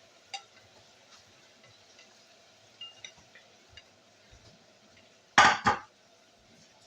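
Cookware and metal utensils clinking lightly, with a loud double clatter about five and a half seconds in.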